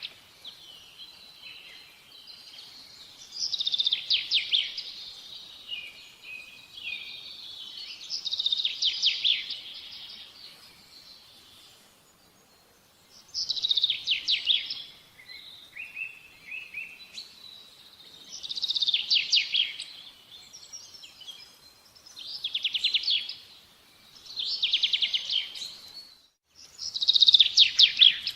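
A small songbird singing, repeating a short, rapid trilling phrase about every four to five seconds.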